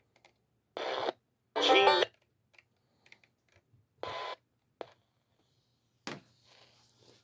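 FM radio being tuned from station to station: short bursts of static and a half-second snatch of a station's audio about two seconds in, which is the loudest part. There are a couple of sharp clicks later, and a faint low hum in the gaps.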